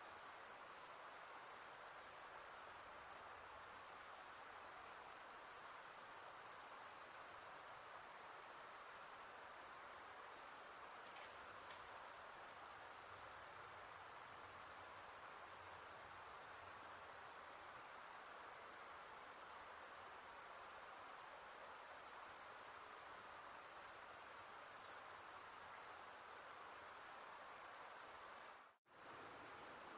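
Dense, steady high-pitched chorus of insects, cricket-like, in a forest ambience. The sound cuts out for a moment near the end, then resumes.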